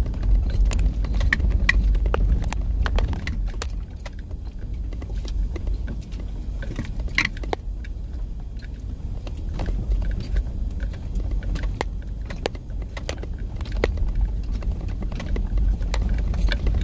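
Car driving over rough desert ground, heard from inside the cabin: a steady low rumble of engine and tyres, with frequent light clicks and rattles throughout.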